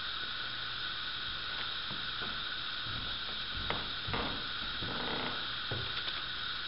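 Steady hiss of the recording's background noise, with faint rustles and soft knocks about halfway through as someone moves right up against the camera's microphone.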